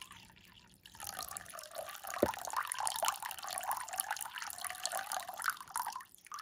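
A thin stream of water poured into a small ceramic water dish, splashing and trickling as the dish is filled to overflowing. The splashing starts about a second in and dies away near the end.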